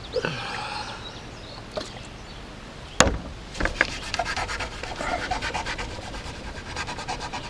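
A cloth rag scrubbing the plexiglass hatch lens with acetone, rubbing hard to work old stuck-on sealant gunk off. A sharp click comes about three seconds in, after which the rubbing turns to quick, rapid strokes with faint squeaks.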